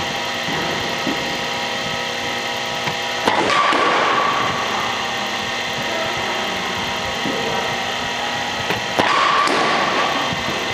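Cricket bat striking a ball twice, about six seconds apart, over a steady machine hum.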